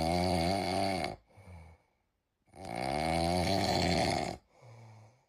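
A cat snoring: two long, loud rasping snores, each followed by a shorter, quieter breath sound, in a slow rhythm.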